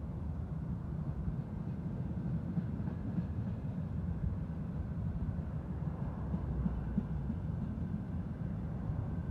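Freight train of rail tank cars rolling past, a steady low rumble of wheels on the track.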